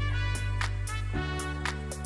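Background music: sustained instrumental chords over a regular beat of about three hits a second, with the chord changing just past the middle.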